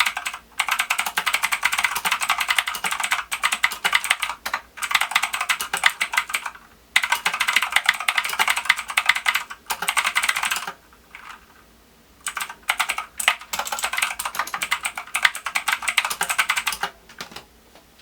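Team Scorpion PEGASUS mechanical keyboard being typed on fast: quick runs of key clicks in bursts with short pauses, thinning to a few strokes partway through, then stopping near the end.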